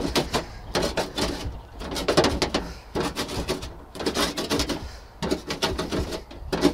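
Handheld herb cutter chopping fresh wild garlic leaves: quick clicky cuts, repeated in short bursts with brief pauses.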